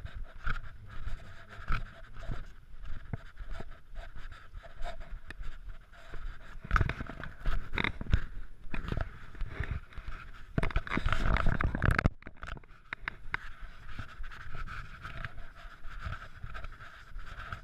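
Footsteps on a dirt path, with rustling and wind buffeting the microphone. The noise swells several times and is loudest about eleven seconds in.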